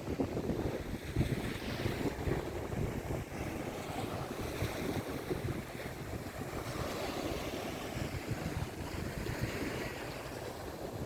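Sea waves breaking and washing on a beach, a steady hiss of surf that swells and eases, with gusts of wind buffeting the microphone.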